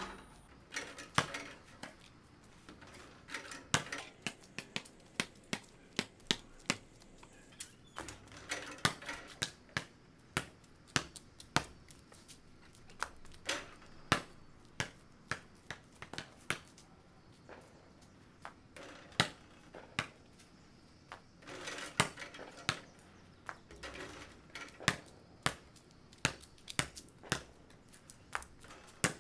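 A basketball bouncing on concrete and shots hitting the backboard and rim of a portable hoop: many sharp, irregular thuds and clanks.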